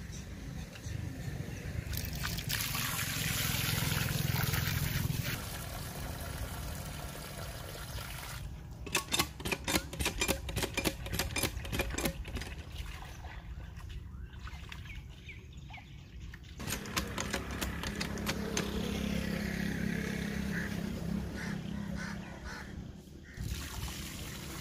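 Water from a hand pump pouring and splashing into a steel bowl while chicken pieces are swished and washed by hand in it. About a third of the way in comes a run of quick, sharp clattering strokes.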